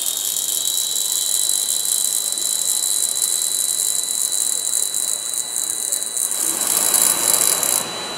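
Pulsed MIG welding arc on aluminium from a CMI300 welder set to double pulse: a loud, steady hiss that cuts off suddenly near the end, with a thin, steady high whine underneath.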